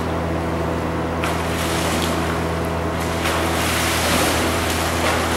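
Water splashing from a swimmer doing a backstroke drill, a hiss that swells about a second in and again around three seconds in, over a steady low hum.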